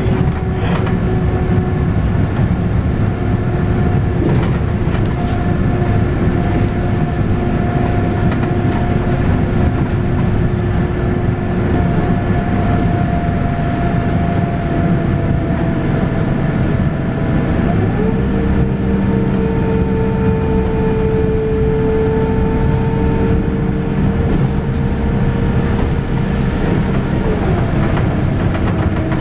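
Scania K280UB bus with its 9.3-litre five-cylinder DC9 diesel and ZF Ecomat six-speed automatic gearbox, heard on board while under way. A constant low rumble carries a steady gearbox whine whose pitch slowly sinks, climbs quickly about 18 seconds in, holds, and drops again near the end.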